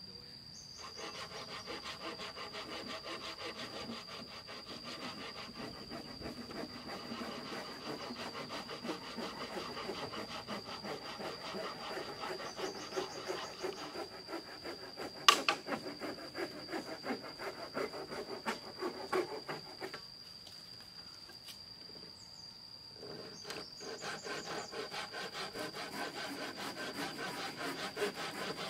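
Hand saw cutting a wooden plank in rapid, even back-and-forth strokes. The sawing stops for about three seconds past the middle, then starts again. A single sharp click comes about halfway through.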